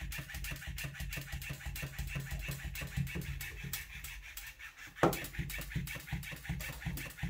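Nepfaivy motorised plush clownfish cat toy flopping on the floor: its motor-driven tail flaps in rapid, irregular slaps several times a second over a low motor hum. The flapping briefly stops just before four seconds in and starts again with a sharp knock about five seconds in.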